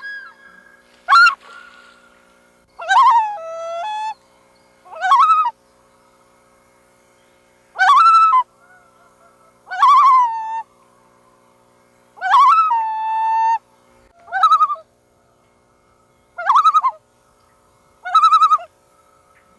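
Loon calls: a series of about nine short calls roughly every two seconds. Several end by dropping to a lower held note, and the last three waver rapidly in a tremolo.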